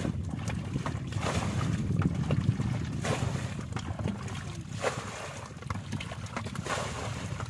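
Wind rumbling on the microphone over sloshing and splashing in ankle-deep muddy water, as people wade and grab at fish by hand, with a few sharper splashes.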